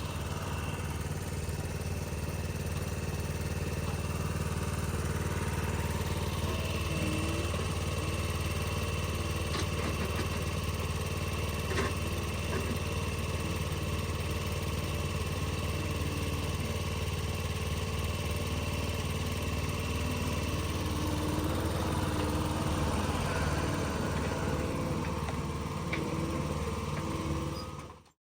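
An engine running steadily at a constant speed, a low even drone, which cuts off abruptly near the end.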